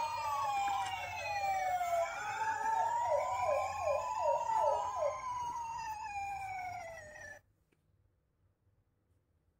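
Electronic sirens of toy ambulances sounding, more than one overlapping in slow rising and falling glides. About halfway there is a quick run of about six falling chirps. They cut off suddenly about two seconds before the end.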